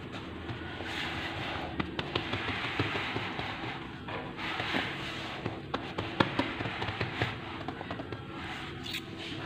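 Hands rolling and pressing a log of stuffed pizza dough on a floured countertop: uneven rubbing and patting of palms on dough and stone, with scattered light knocks and clicks.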